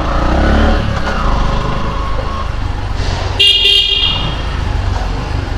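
Low road and traffic rumble, with a vehicle horn honking once for about half a second a little past the middle.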